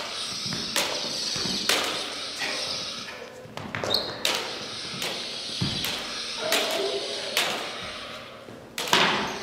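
Combat lightsaber blades striking each other in a sparring bout, a sharp knock about once a second at irregular intervals, echoing in a large hall. A brief high squeak comes about four seconds in.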